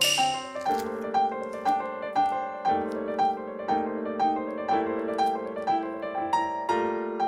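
Background piano music: a gentle keyboard tune with a repeated note struck about twice a second over held chords.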